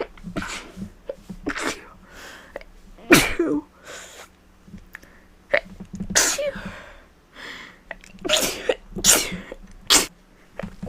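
A woman with a head cold sneezing several times in a row, each sneeze a sharp, loud burst, the loudest about three seconds in.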